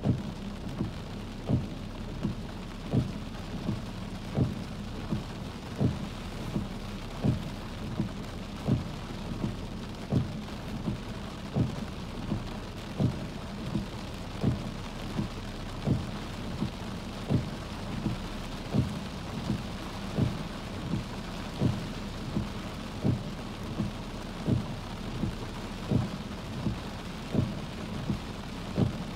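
Car windshield wipers thumping at each stroke, about once every second and a half, with rain pattering steadily on the car, heard from inside the cabin. A steady low hum runs underneath.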